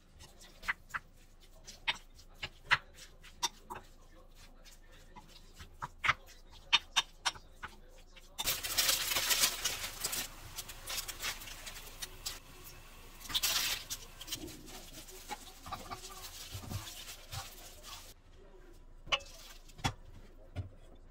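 A wooden spoon knocks and scrapes against a bowl in sharp separate clacks as rice is mixed with sauce. About eight seconds in, a pan of water at a rolling boil takes over with a steady bubbling hiss, followed by a few knocks near the end.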